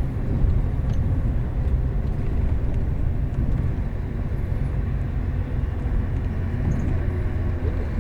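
Bus engine and road noise heard from inside the passenger cabin while the bus is travelling: a steady low rumble with a few faint rattles.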